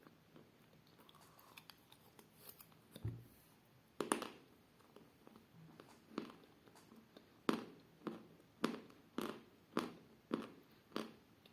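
Chalk being bitten and chewed close to the mouth. A loud crunchy bite comes about four seconds in, after a soft thump. It is followed by a steady run of short, dull crunches, a little under two a second, as the chalk is chewed.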